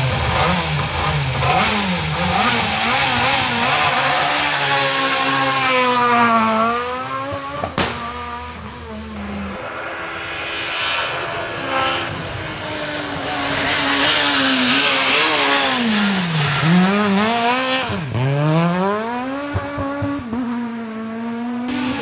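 Renault Clio S1600 rally cars' high-revving 1.6-litre four-cylinder engines driven hard, the pitch climbing through each gear and dropping sharply at quick gear changes. A single sharp crack comes about eight seconds in.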